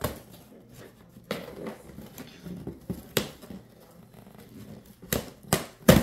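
Plastic packing tape on a cardboard box being sawn through with a USB cable and torn open by hand: scattered sharp rips and scrapes of tape and cardboard, with three loud rips in quick succession near the end.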